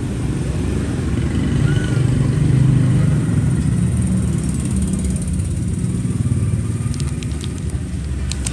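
Steady low rumble of motor traffic, motorbikes among it, swelling for a moment about two to three seconds in. A few light clicks come near the end.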